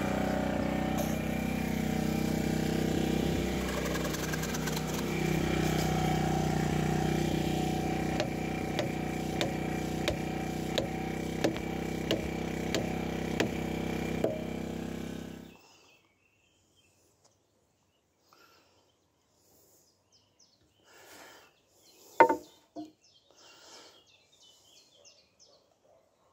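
Small petrol engine, most likely the portable generator, running steadily at a constant speed. In the second half it is overlaid by short regular clicks about every 0.6 s, then it cuts off suddenly. Faint birdsong follows, with one sharp wooden knock.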